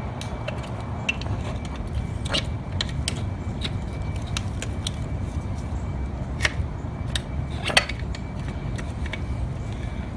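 Scattered light clicks and knocks of metal parts as the old hydraulic slave cylinder is worked by hand off a T56 transmission's input shaft inside the bell housing. A few sharper knocks come about two seconds in and again around six to eight seconds in, over a steady low background rumble.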